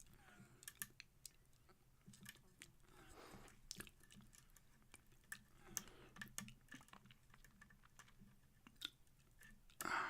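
Faint, irregular small clicks and scrapes of a lock pick and tension tool working the pins inside a Kwikset pin-tumbler lock cylinder, with a brief louder rustle near the end.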